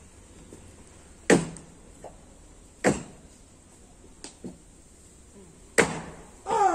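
Plumbing work on a clogged drain: three loud bangs with short ringing tails and a few lighter knocks, like tools striking pipes. A voice sounds near the end.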